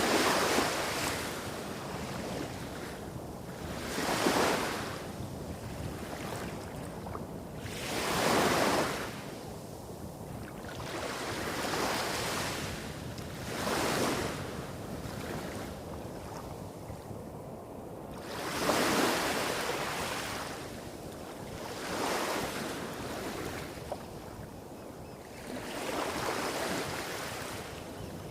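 Small waves breaking and washing up a beach, a rush of surf every two to four seconds over a steady low rumble of waves hitting rocks a few hundred metres away.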